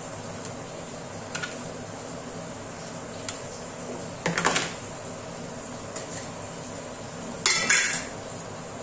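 Stainless steel kitchenware clinking against the counter as it is handled, over a steady hiss. There are a few light clinks, then two louder clatters, one about four and a half seconds in and one near the end, when the lid of a steel spice box comes off and is set down.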